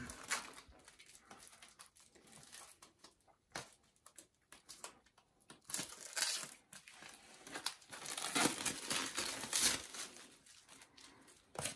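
Plastic wrapping crinkling and rustling on and off while a new water-softening filter cartridge is handled, with small clicks and knocks. The rustling gets louder and busier about eight seconds in.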